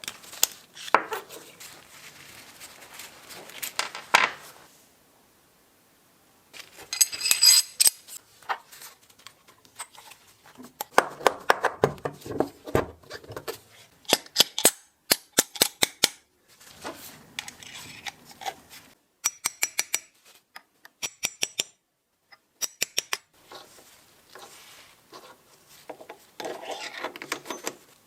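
Metal drill-press parts and hand tools clinking, clicking and knocking, in short bursts of sharp taps and runs of quick ticks with brief gaps between them.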